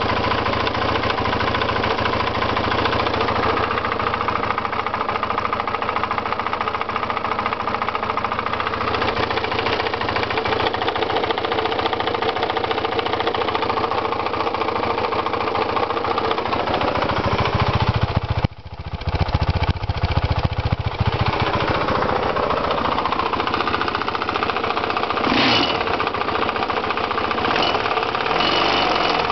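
KTM GS 620 RD motorcycle's single-cylinder engine running with a rattling, clattering clack from the engine. The sound dips sharply for a moment about two-thirds of the way through, then picks straight back up.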